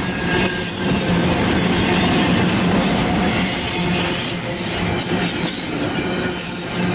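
Freight train cars rolling past: a steady, loud wheel-on-rail noise with thin, high wheel squeal running through it.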